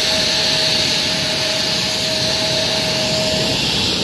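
Jet airliner engines, super loud: a steady rushing noise with a high, even whine that stops about three and a half seconds in.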